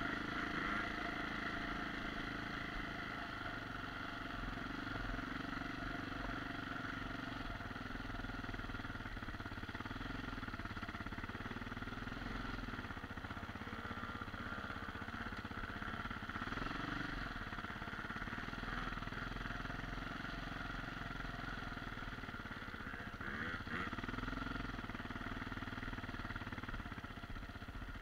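Enduro motorcycle engine running steadily while riding, heard from the rider's helmet, with small swells in throttle about two-thirds of the way in and again near the end.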